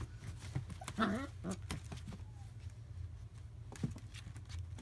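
Five-week-old German Shepherd puppies playing and scuffling, with small clicks and rustles throughout. Two short puppy cries come about a second in and half a second later.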